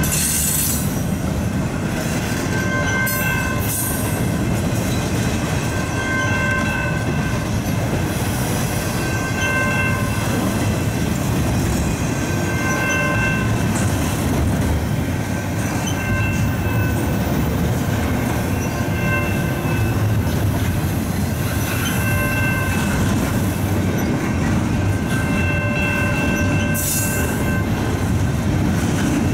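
Canadian National double-stack intermodal freight train rolling through a level crossing. Its cars make a steady rumble on the rails, and short high ringing tones recur every second or two.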